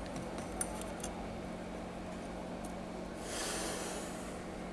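Light metallic clicks of a BGA reballing stencil being handled on an IC holder jig, then a short hiss of air lasting about a second, about three seconds in, over a steady low hum.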